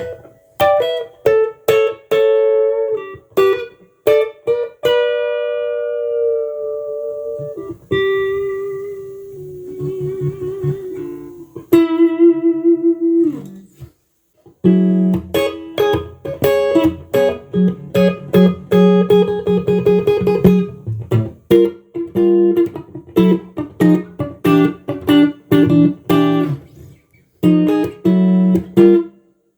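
Tomson Spirit Sounds Stratocaster electric guitar played solo: single-note melodic phrases, with held notes wavering in vibrato about a third of the way in. About halfway through it moves into a faster rhythmic riff of repeated notes and chords.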